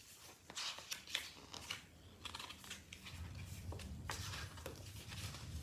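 A thin paperback picture book being handled and opened: soft, scattered paper rustles and page flicks.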